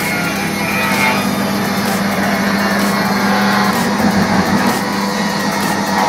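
Makita table saw running and ripping a wooden board into thin strips: a steady motor hum over the whine and hiss of the blade, wavering briefly about four seconds in.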